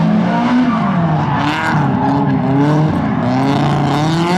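Drift car's engine revving hard, its pitch climbing and dropping several times as the driver works the throttle through a slide, with tyres squealing against the pavement.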